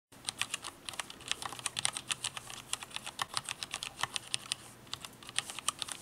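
Typing on a Filco Majestouch-2 mechanical keyboard with steel-plate-mounted Cherry MX switches: a fast, uneven run of key clicks, several a second, thinning briefly a little before the end.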